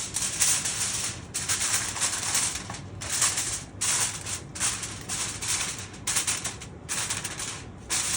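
Aluminium foil crinkling and rustling in repeated bursts with short pauses, as it is pressed over a large skillet as a makeshift lid.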